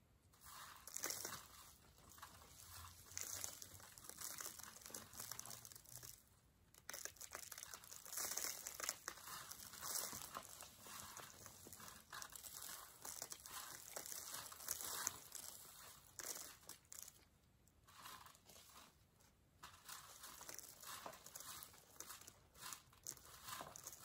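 Loose dirt and rock chips rattling and scraping in a hand-held sifting screen as it is shaken, in spells with a couple of brief pauses.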